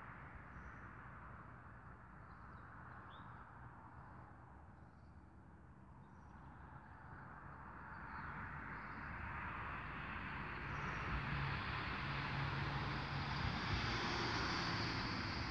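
Engine and tyre noise of a motor vehicle drawing closer, a steady rushing sound with a low hum that swells gradually over the second half. A few faint bird chirps sound during the first half.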